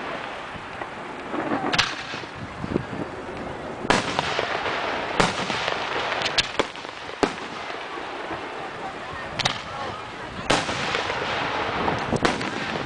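Aerial firework shells bursting in the sky, with sharp bangs every second or two and a continuous rushing noise between them.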